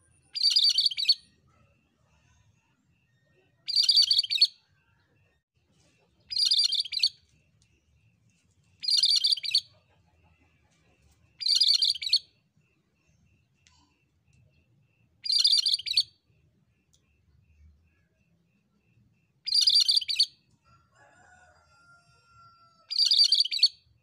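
Cucak kerinci (cream-striped bulbul) singing: eight short, loud phrases, each under a second long, repeated every two to four seconds.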